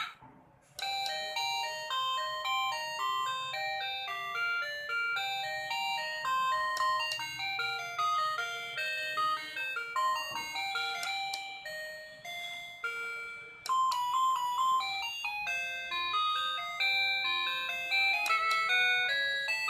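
Wireless doorbell receiver playing its electronic ringtone melodies, quick sequences of clear beeping notes. It is cycling through its built-in tunes, and a new tune starts about two-thirds of the way through.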